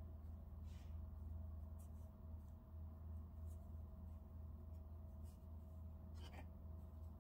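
Faint scratchy rustles of black yarn drawn over a metal crochet hook as stitches are worked, a handful of short ones spread out, the clearest about six seconds in, over a steady low hum.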